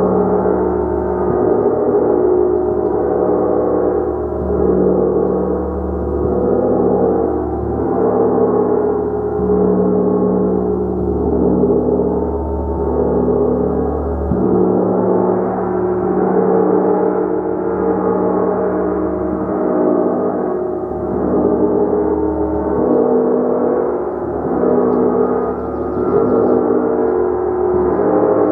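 Large hammered gong played continuously with a mallet: a dense, sustained wash of overlapping tones that swells and eases in a steady pulse every second or two.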